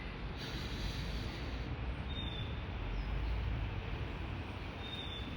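Steady low rumble of passing vehicles in a city street, with two brief high chirps, about two seconds in and near the end.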